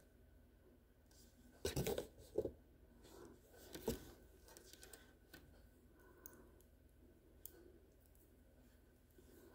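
Small toy building pieces handled and fitted together by hand: a cluster of louder knocks and rustles about two seconds in and another near four seconds, then scattered faint clicks.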